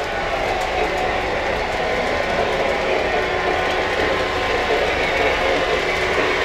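O gauge model trains running on the layout's three-rail track: a steady mix of wheel, motor and track noise.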